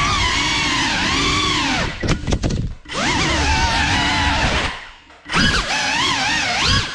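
Motors and ducted propellers of a GEPRC Cinelog35 FPV cinewhoop drone whining in flight, the pitch rising and falling with the throttle. The sound drops away sharply twice, about two and five seconds in, then surges back.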